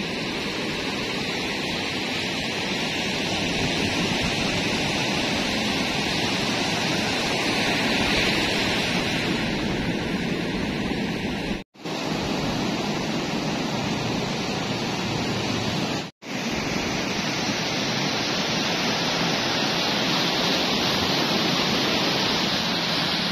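Surf breaking and washing up a sandy beach as a steady rushing noise, with wind on the microphone. The sound cuts out for an instant twice, about twelve and sixteen seconds in.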